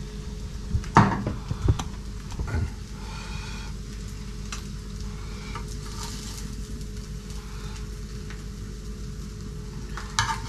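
Slices of Spam sizzling as they fry in a pan, with a few sharp knocks of a utensil against the pan about a second in and again near the end.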